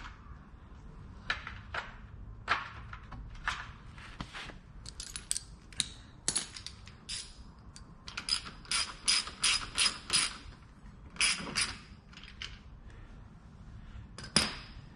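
Sharp metal-on-metal clicks and clinks, irregular at first and then coming about three a second through the middle, as a greased front axle is worked through a dirt bike's wheel hub and fork with a hand tool.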